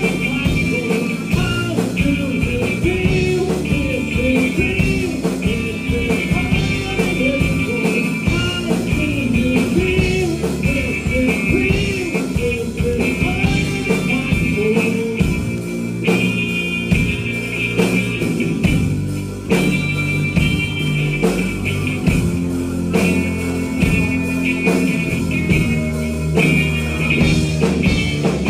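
Live rock band playing loud through stage amplifiers: electric guitar, bass guitar and drums, with a wavering melodic line over the rhythm.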